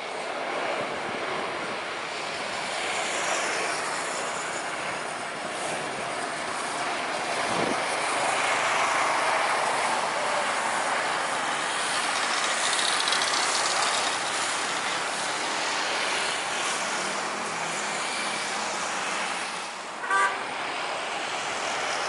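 Lion Air Boeing 737's CFM56 turbofans: a steady jet rush that builds as the airliner comes in low and touches down, loudest around the middle. About twenty seconds in, a short, sharp high beep briefly cuts through.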